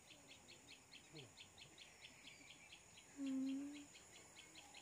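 Quiet riverside wildlife ambience: a steady, rhythmic high chirping of about five to six chirps a second over a faint high hiss. A short low hum lasting under a second comes a little past the middle.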